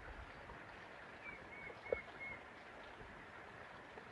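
Faint rural outdoor background with a small bird calling four short, evenly spaced chirps a little over a second in, and one soft tick.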